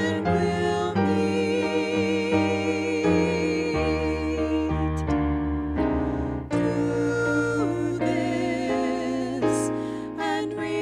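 Two women singing a duet in held notes with vibrato, accompanied by chords on a Yamaha electronic keyboard. The singing breaks off briefly about halfway through while the keyboard carries on.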